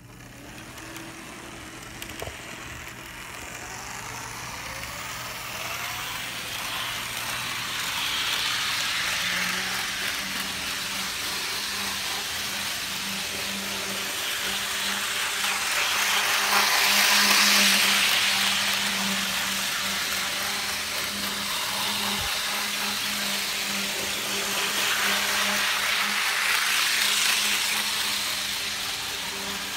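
HO-scale Lima TGV 'La Poste' model train running on DC track: its motor whirring and wheels rolling on the rails over a steady hum. The sound swells and fades three times as the train comes close and moves away.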